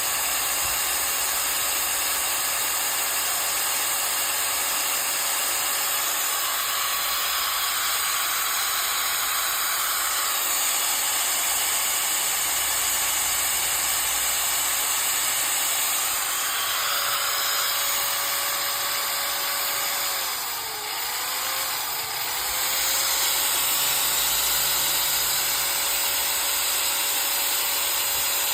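Makita 9553B 4-inch angle grinder running steadily with a high whine and hiss. About two-thirds of the way through, its pitch dips twice in quick succession as the motor briefly slows, then climbs back to full speed.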